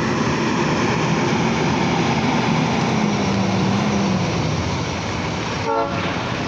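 Diesel semi truck pulling an empty flatbed trailer past at close range, its engine drone and tyre noise steady, with the engine note falling slightly about four seconds in.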